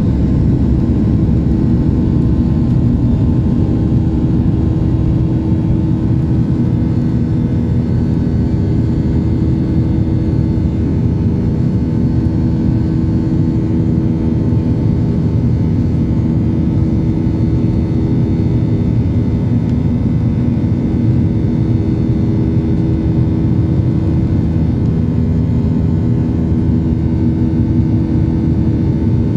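Cabin noise of a Boeing 737-800 with its CFM56-7B jet engines running: a steady low rumble of engine and airflow noise, with a few held engine tones over it, at an even level.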